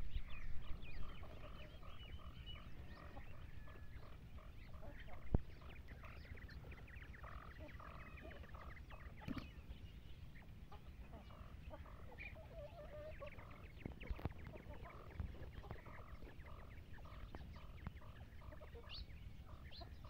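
Flock of free-range chickens clucking and calling faintly as they forage, many short calls overlapping, with a few sharp knocks scattered through.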